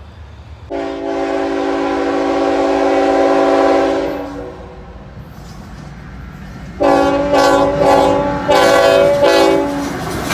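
Diesel locomotive air horn, a chord of several notes: one long blast lasting about three and a half seconds starting near the start, then after a pause a series of shorter blasts near the end as the freight locomotive draws close.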